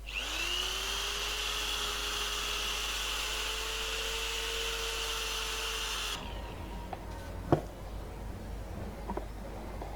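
Electric drill spinning up quickly and running steadily for about six seconds, then stopping, as it turns a bit wrapped in wet 1200-grit sandpaper inside a clutch master cylinder bore to clean the bore. A few light clicks and a sharp knock follow.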